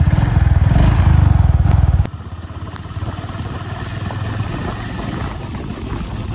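Motorcycle engine running loud with a fast low pulsing for about two seconds, then dropping to a quieter steady running.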